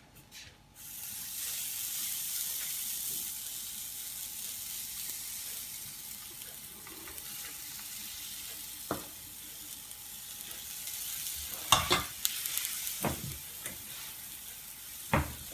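Oladyi batter dropped by the ladleful into hot oil in a frying pan, sizzling. The sizzle starts suddenly about a second in as the first dollop hits the oil and then runs on steadily. In the second half come a few sharp knocks, the loudest near the end.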